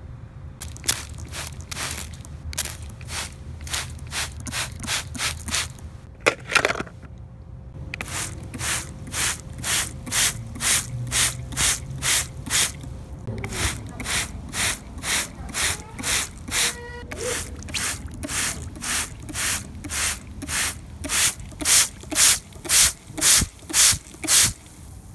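Quick, evenly spaced squirts from a trigger spray bottle spraying water, about two a second. There is a pause with a brief squeaky scrape about six seconds in, and the last few squirts near the end are the loudest.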